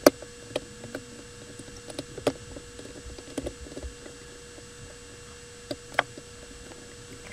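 Scattered sharp clicks and taps as an airsoft AEG gearbox shell and small metal tools are handled and the gearbox halves are worked into line, about eight in all, the loudest right at the start. A faint steady hum runs underneath.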